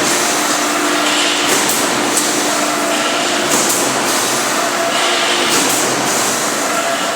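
SUMAB automatic wire-mesh welding line running: a steady industrial din with faint steady tones, and a brief high-pitched burst about every two seconds as the line cycles.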